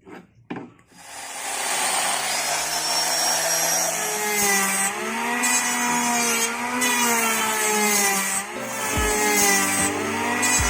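Electric power tool running and cutting into wood, its motor pitch wavering as the load changes, with a brief dip in level near the end.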